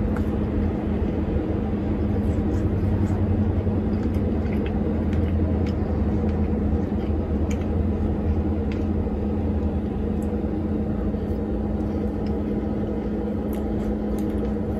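Steady low mechanical hum and rumble with a constant tone, with faint light clicks now and then.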